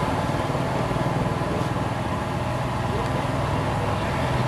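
Busy street noise: a steady din of road traffic with indistinct voices.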